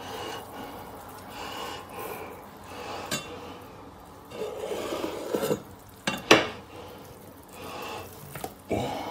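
Cleaver cutting a roll of boiled pig skin on a bamboo cutting board, with a scraping stretch as the blade works through the skin and a few sharp knocks of metal on wood, the loudest about six seconds in.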